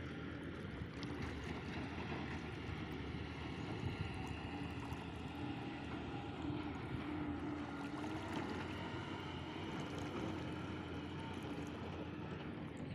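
Water sloshing and trickling around a man wading waist-deep as he lifts a nylon gill net out of a river and handles it, over a steady low hum.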